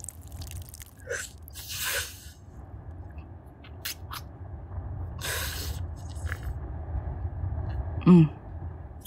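Roleplay feeding sounds: wet sucking and slurping mouth noises with scattered smacks and a sharp breath. About eight seconds in comes a short voiced hum falling in pitch, the loudest sound, all over a low steady rumble.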